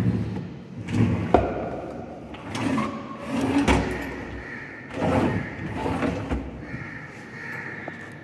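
Wooden dresser drawers being pulled open and pushed shut several times, sliding and scraping in their runners, with a sharp knock about a second in.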